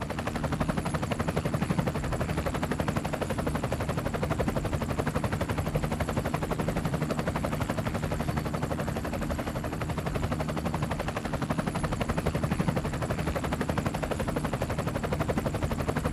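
Helicopter rotor noise heard from aboard the aircraft: a fast, even beat of blade passes over a steady low drone.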